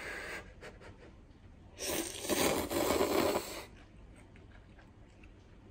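A man blowing briefly on a mouthful of hot cup-ramen noodles, then slurping them in loudly about two seconds in, the slurp lasting nearly two seconds.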